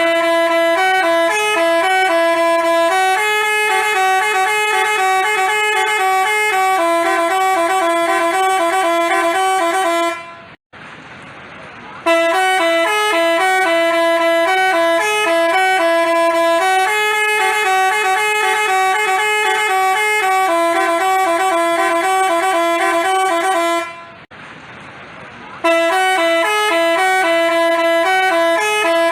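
Basuri telolet multi-tone horn playing a loud stepping melody, note after note in a repeating tune. The tune breaks off twice for a second or so and then starts again.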